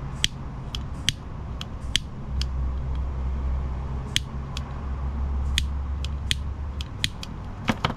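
Pocket lighter being clicked over and over, about fifteen sharp, irregularly spaced clicks, as its flame is put to the trimmed ends of a fishing-line knot. A low hum in the background swells in the middle.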